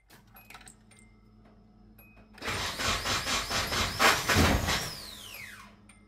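Nissan 240SX starter motor spinning with a rattly whine for about three seconds without turning the engine over, then winding down in a falling whine once the key is let go. The owner takes this whining, free-spinning starter for a failing starter.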